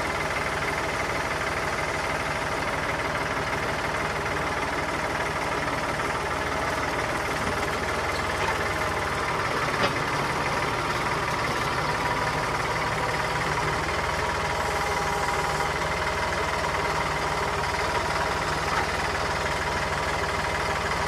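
Massey Ferguson tractor engine running steadily while the tractor works with its pallet forks, with a single sharp knock about halfway through.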